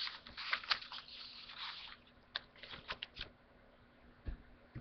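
Sheets of origami paper rustling and crinkling as they are handled and flipped through, busiest over the first two seconds, then a few short crackles and a soft knock near the end.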